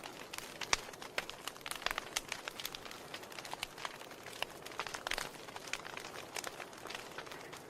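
Wood fire crackling in a fireplace: a steady soft hiss with frequent irregular sharp pops and snaps.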